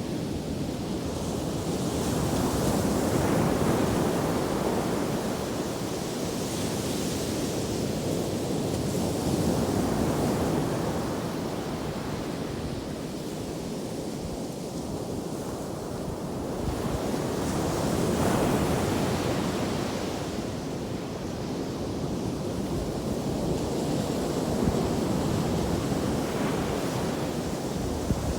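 Ocean surf breaking on a beach, a steady wash that swells and fades in slow surges every several seconds, with wind buffeting the microphone.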